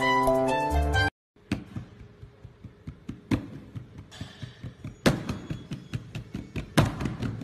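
A gentle background tune cuts off about a second in. Then irregular soft taps and thumps follow, a few a second, as hands pat and jiggle a cat, with brief louder rustling around the middle and near the end.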